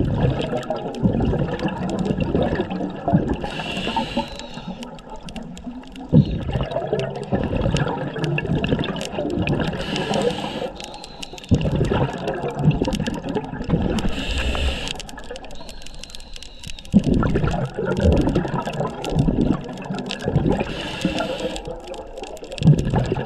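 Scuba regulator breathing underwater: gurgling bursts of exhaled bubbles about every five and a half seconds, each gap broken by the short hiss of an inhalation through the regulator.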